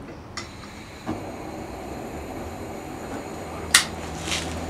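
Shmel-2 petrol primus stove being lit: a dull pop about a second in, then the burner's steady rushing roar builds and deepens as it catches after preheating. Two sharp clicks come near the end, the first the loudest sound.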